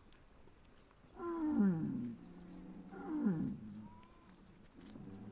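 Cows mooing: two loud moos about a second and a half apart, each falling in pitch, and a fainter moo near the end.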